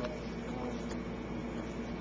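Steady low room noise with a few faint clicks.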